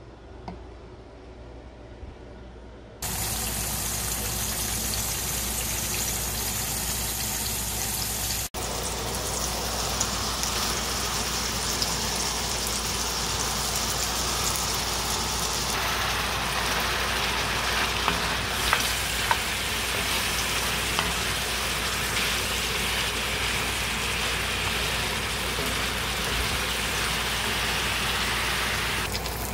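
Beef and broccoli sizzling in a hot cast-iron skillet; the sizzle sets in suddenly about three seconds in. A few light knocks of a wooden spatula stirring the pan come through the sizzle.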